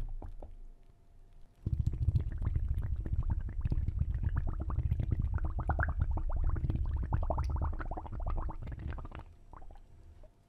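Water bubbling and gurgling, like an underwater bubble stream: a dense run of quick bubble pops and short rising blips. It starts about a second and a half in and fades out near the end.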